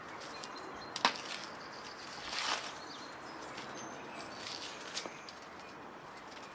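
Thin membrane being pulled off a raw rack of beef ribs by hand, a wet tearing sound that swells once about two and a half seconds in, with sharp clicks about a second in and near five seconds. Birds chirp faintly in the background.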